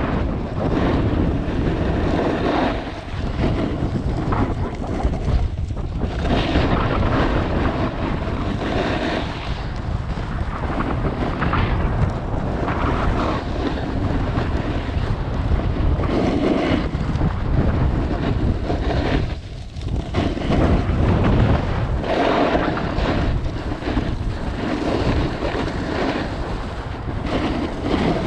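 Wind rushing over the microphone and a snowboard sliding and scraping over groomed snow during a fast descent, the noise swelling and easing with each turn.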